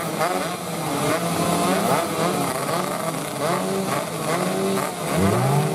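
A grid of two-stroke 116cc underbone racing motorcycles revving while waiting for the start, many engine notes overlapping and rising and falling; about five seconds in, one engine revs up sharply.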